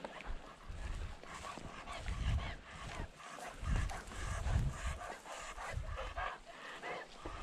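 A young tracking dog panting as it works a blood trail on a long leash, with irregular low thuds of footsteps over moss and rock.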